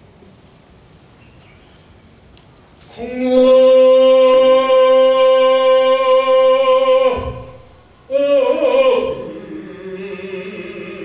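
A Buddhist monk's chanting voice holds one long note at a steady pitch for about four seconds. A second, sliding phrase comes about a second later, and softer, lower chanting carries on near the end.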